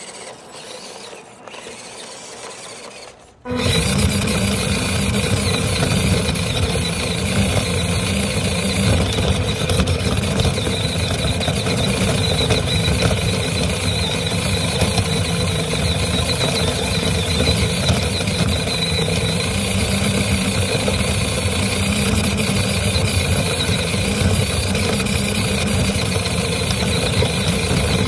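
Small electric RC crawler truck's motor and gears whining steadily while it drives over rough dirt. The sound is quieter at first, then about three and a half seconds in it turns suddenly loud and close, as picked up by a camera riding on the truck.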